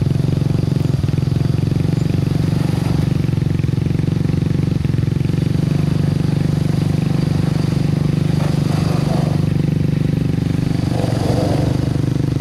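Toyota Tacoma pickup's engine running at low, steady revs as the truck crawls up a steep dirt mound, with no rise or fall in pitch.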